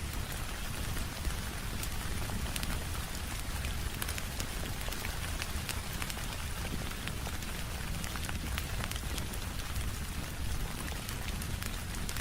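Steady rain mixed with a crackling wood fire: an even hiss with a low rumble underneath and many small, sharp pops scattered through it.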